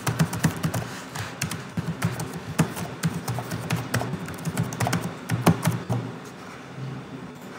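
Typing on a computer keyboard: a quick, irregular run of key clicks that stops about six seconds in.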